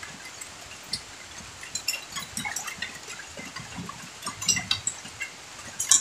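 Scattered light clinks and taps of plates and eating utensils during a meal on a bamboo floor.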